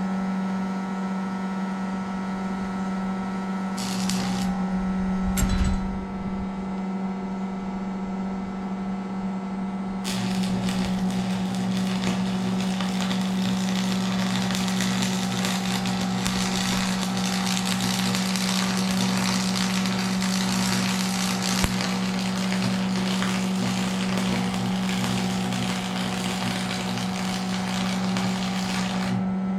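Electric arc welding over a steady electrical hum. The arc is struck briefly twice, about four and five and a half seconds in. From about ten seconds in, a continuous crackling weld bead is laid to fill a gap and build up the metal, and it stops abruptly just before the end.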